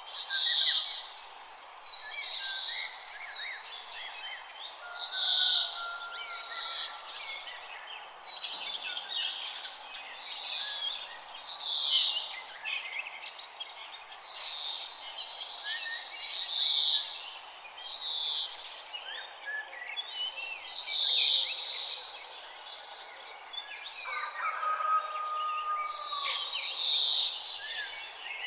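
Several wild birds singing and calling together, overlapping chirps and trills, with one loud, high call sweeping downward and recurring every two to five seconds over a steady background hiss.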